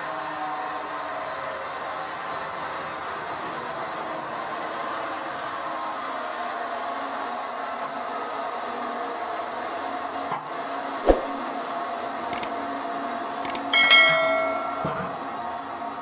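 Horizontal band sawmill running and cutting lengthwise through a squared timber: a steady sawing hiss. A sharp knock comes about eleven seconds in, and a brief ringing tone sounds near the end.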